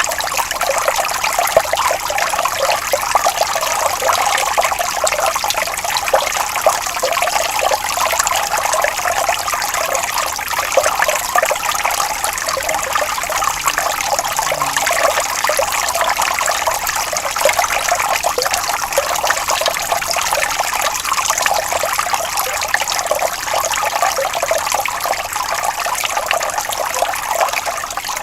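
Water flowing and trickling steadily, a stream babbling with an even, unbroken splashing.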